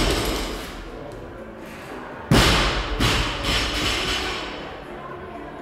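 Two heavy thuds on a rubber gym floor, about two and three seconds in, the first the louder, each ringing on briefly in the large room.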